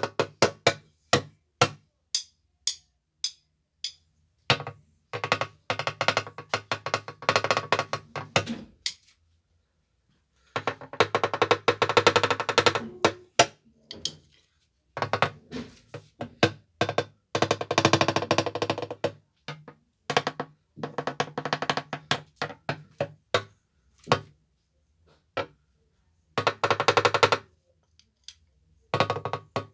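Very fast drum rolls played with wooden drumsticks on a single drum. They come in bursts of a few seconds, separated by short pauses with scattered single strokes.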